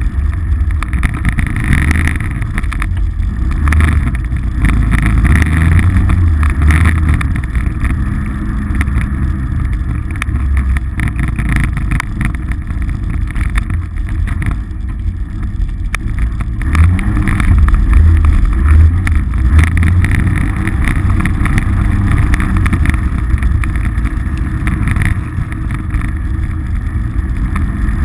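Polaris RZR side-by-side running while driving off-road, a steady low engine drone that swells and eases with the throttle, loudest about two-thirds of the way through.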